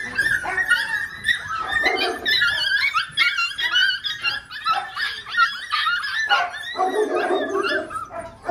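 A litter of six-week-old Belgian Malinois puppies yipping, whining and barking all at once, many high voices overlapping without a break.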